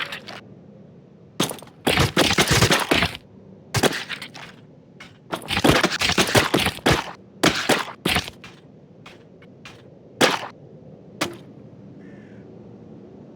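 Coconut being cracked and crunched: irregular bursts of sharp cracking, some in dense runs lasting about a second or more, the last single cracks coming about ten and eleven seconds in.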